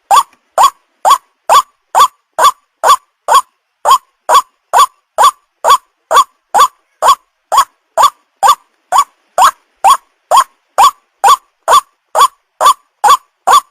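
White-breasted waterhen lure-call recording: short, loud, rising notes repeated evenly about twice a second in an unbroken, looped-sounding series, the kind of call played to draw young waterhens in.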